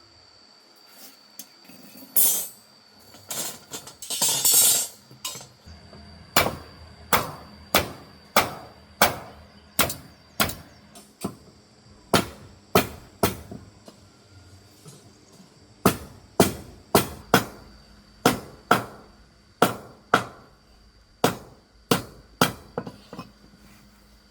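Repeated sharp strikes, about two a second, in three runs with short pauses, like hammer blows. A few louder, rougher knocks or scrapes come first.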